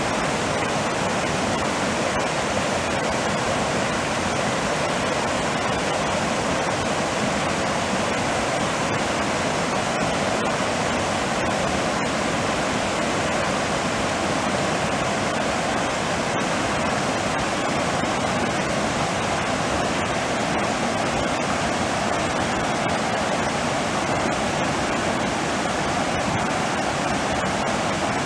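Fast-flowing rocky creek rushing over small cascades: a steady, unbroken rush of water.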